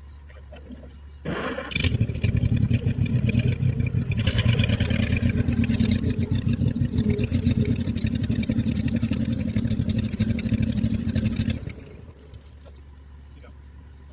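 John Deere 420C crawler's two-cylinder engine idling, then a sharp clunk about a second in and the engine brought up to speed and run hard for about ten seconds before dropping back to idle.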